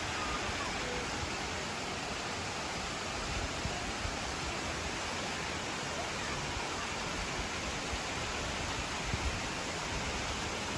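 Waterfall heard from a viewpoint above it: a steady, even rush of falling water.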